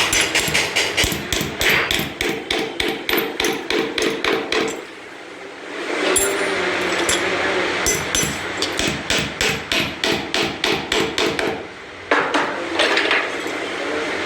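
A hammer striking in quick, even blows, about four a second, in three runs with two short pauses.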